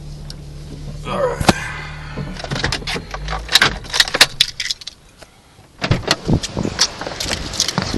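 Car engine running steadily, then shut off about three seconds in, followed by a run of sharp clicks, knocks and rattles, with a brief quiet gap before more clatter.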